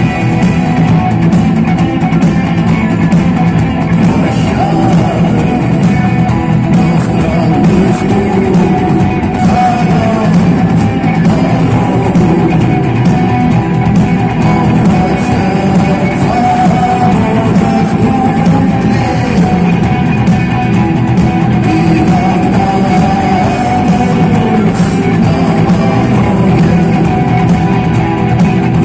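Live rock band playing, with electric guitar, drums and a sung vocal line, recorded from the audience.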